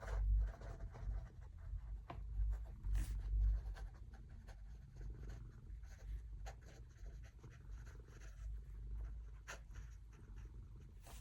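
Faint scratching of writing by hand on paper, with scattered small clicks and a few low desk thuds.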